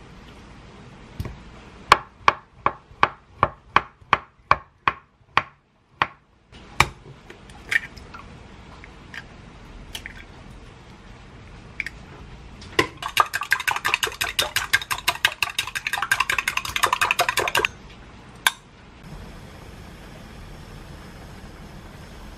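Knife cutting through avocado onto a wooden cutting board in an even run of about three strokes a second. Later, two eggs are whisked fast with a utensil in a glass measuring cup for about five seconds. Near the end comes a steady sizzle as the beaten egg goes into the hot oiled tamagoyaki pan.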